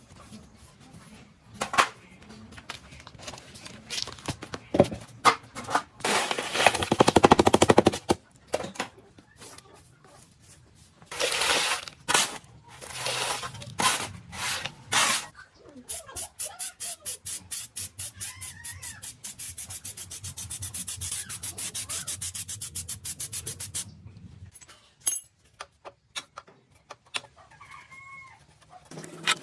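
Hand tools working on metal parts of an old air compressor: scattered clinks and knocks, several long scraping strokes, then a fast, even run of clicks lasting about eight seconds.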